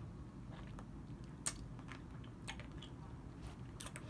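A person eating a piece of candy in the mouth: a few faint, scattered mouth clicks and smacks.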